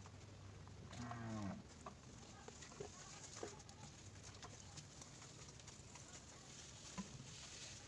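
A short, faint animal call falling in pitch about a second in, over scattered faint clicks and taps of handling.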